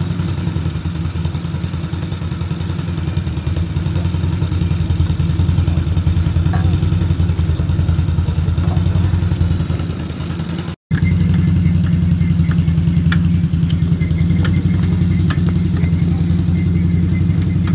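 Quad bike (ATV) engines running at low, steady revs as the quads crawl over a rocky track. The sound drops out for a moment about eleven seconds in, and a few sharp clicks follow.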